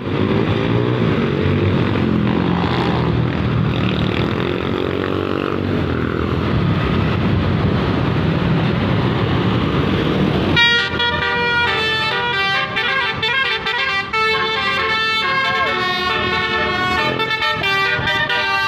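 Bus telolet horn, a Basuri multi-tone air horn, playing a tune. For the first ten seconds or so it is mixed with heavy engine and road noise, then the sound cuts abruptly to clear horn notes stepping from pitch to pitch.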